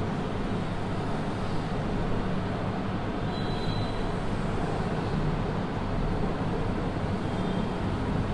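Steady low rumbling background noise with a hiss, unchanging throughout, with two brief faint high tones, one about three and a half seconds in and one near the end.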